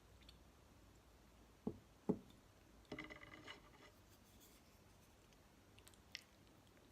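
Close-miked handling sounds while eating jello: two dull taps, then a short wet rattling squish, and a light click near the end.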